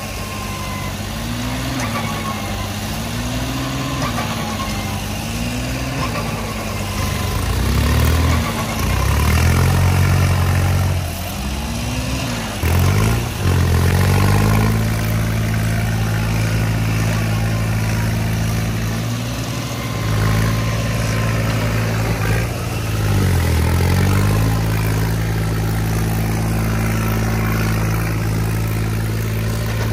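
Diesel tractor engines of a stuck John Deere 5050 E and a New Holland 3630 pulling it, working hard in deep mud. Engine speed swings up and down in a repeating pattern at first, then is held high and steady with a couple of brief dips. The spinning rear tyres churn the mud.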